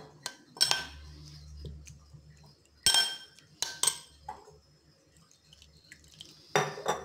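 Steel spoon clinking against a glass bowl while stirring chopped mint leaves in lemon juice and water. There are several separate ringing clinks, the loudest about three seconds in and another near the end.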